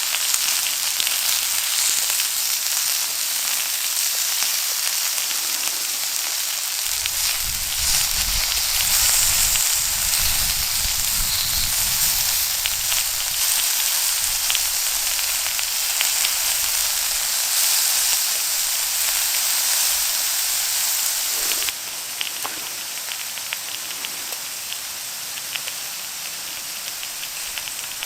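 Beef short ribs grilling over a wood fire: a steady sizzling hiss with scattered crackles, and a low rumble for a few seconds partway through. Near the end it switches abruptly to a quieter hiss with sharper pops.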